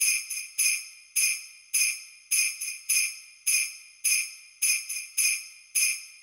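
Sleigh bells shaken alone in a steady rhythm, about two shakes a second with an occasional quick double shake, each ringing and dying away. They open a Christmas rap song before any beat or vocals come in.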